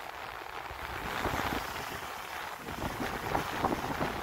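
Sea water rushing and splashing under the trampoline net of a Sunreef 80 sailing catamaran under way, with a few louder splashes in the second half. Wind buffets the microphone throughout.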